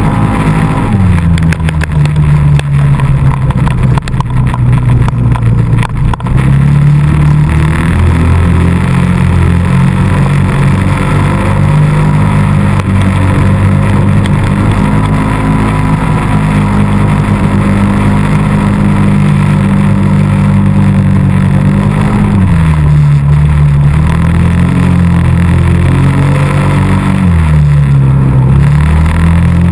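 ATV engine running hard through snow, its revs dipping and climbing back briefly about a second in and twice more near the end. A run of knocks and rattles comes over it in the first several seconds.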